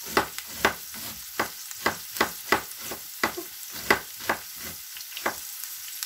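A kitchen knife chopping cabbage on a cutting board, about two to three sharp chops a second, stopping shortly before the end. Under it, a steady sizzle of onion and carrot frying in a pan.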